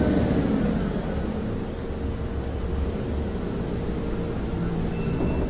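Gas-powered STILL forklift running as it pulls up to a truck and lifts its forks to the pallet, a steady low engine rumble that eases a little after the first couple of seconds, with a faint steady hum under it. A thin, high steady tone comes in near the end.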